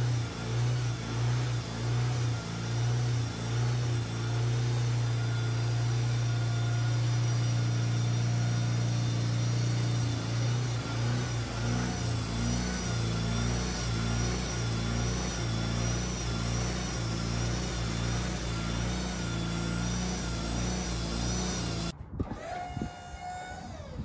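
Wood-Mizer LT40HD portable band sawmill running, its engine humming steadily under load while the band blade cuts through a white oak cant. The sound drops away abruptly about two seconds before the end.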